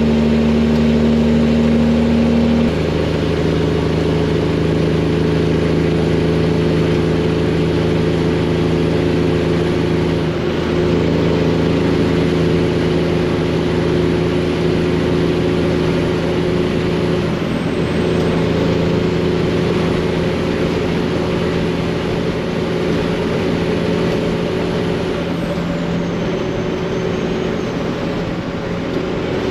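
Freightliner semi truck's Detroit diesel engine running steadily, with a faint high whistle above the engine that dips in pitch a couple of times.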